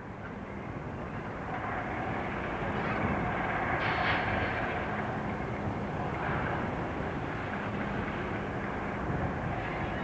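British Rail Class 08 diesel shunter's English Electric six-cylinder engine running as the locomotive moves slowly over yard points. The engine grows louder over the first few seconds, then holds steady.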